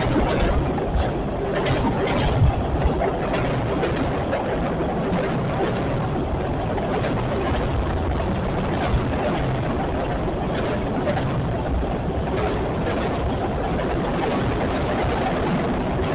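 Train cars rolling past: a steady rumble of wheels on rail, with irregular clicks and clanks from wheels crossing rail joints.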